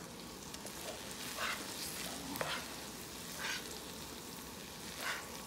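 A spatula scraping sautéed sardines, egg and spinach out of a frying pan onto rice: several soft, short scrapes and light knocks over a faint hiss.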